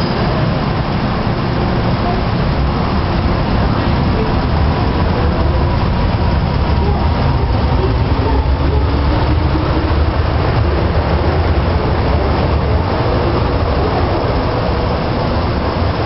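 MTR M-Train running through an underground station without stopping. Its wheels and traction motors make a loud rumble behind the platform screen doors, loudest in the middle as the train rushes past, with a faint motor whine over it.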